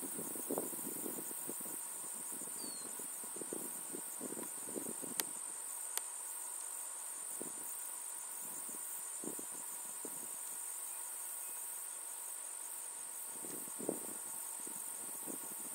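Insects in the grass chirring in one steady high-pitched trill, with soft low rustles now and then and two sharp clicks about five and six seconds in.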